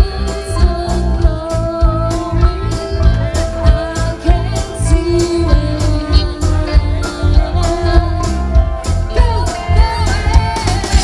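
Live rock band playing: a singer holding long, wavering notes over electric guitars, keyboard and a steady drum beat, heard through the stage PA.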